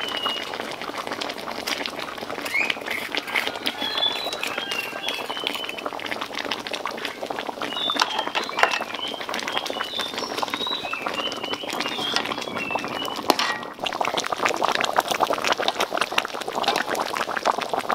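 Pork trotter stew bubbling at a boil in a steel wok, a dense crackle of popping bubbles that grows louder about fourteen seconds in. Small birds chirp high over it now and then.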